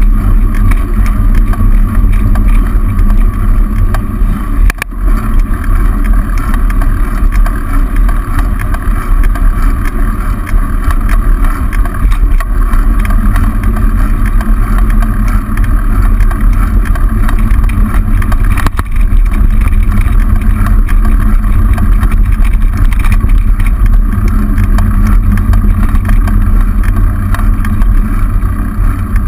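Steady, loud rumble of wind and road vibration on a bicycle-mounted camera's microphone while riding along a road, with a single short knock about five seconds in.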